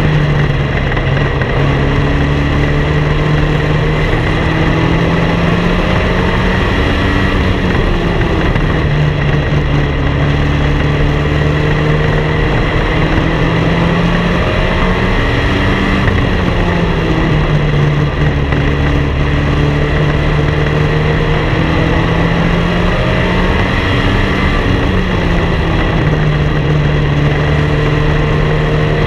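Race car engine at racing speed, heard through an onboard camera, its pitch dropping and climbing again every few seconds as it lifts through the turns and accelerates down the straights.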